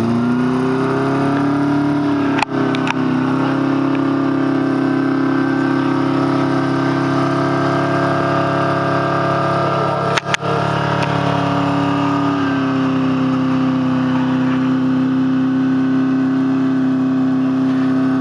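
Rock buggy's engine revving up and then held at high, steady revs under load as it climbs a steep rock slab, the pitch dropping slightly about twelve seconds in. The sound cuts out for an instant twice.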